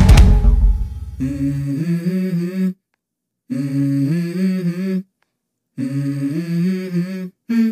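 Background music: a loud rock track with drums fades out within the first second, then an unaccompanied wordless vocal hums a stepped melody in short phrases, broken by brief silences.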